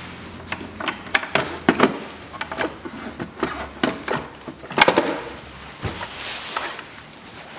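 Hard plastic clicking, rattling and knocking as the air-intake duct and air filter housing lid are worked loose and lifted out of a car's engine bay, with one louder knock about five seconds in.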